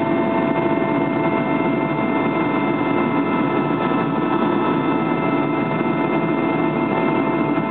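Aircraft engine noise heard inside the cabin during the climb after take-off: a steady, dense drone with several steady whining tones above it, unchanging throughout.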